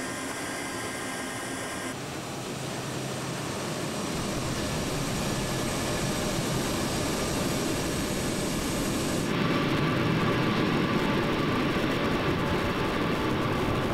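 Jet engines of a C-17 Globemaster III (four Pratt & Whitney F117 turbofans) running on the ground as the aircraft starts to move: a continuous rumble and whine that grows slowly louder. Its character changes abruptly about two seconds in and again about nine seconds in.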